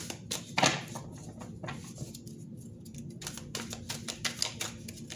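A deck of tarot cards being shuffled by hand: a quick, irregular run of light card snaps and flicks, with a short lull in the middle.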